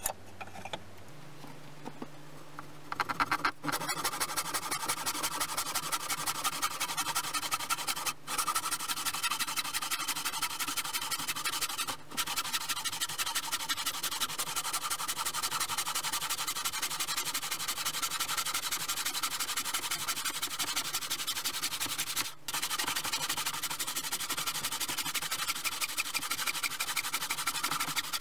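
A hand tool rasping on wood in fast, even strokes, starting about three seconds in and stopping briefly three or four times.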